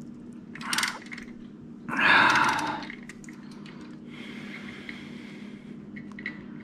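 Hand-tool handling on an engine block: a long wrench set down and a main cap bolt worked by hand, with short scrapes and clicks. A loud rush of noise lasting about a second comes about two seconds in, over a steady low background hum.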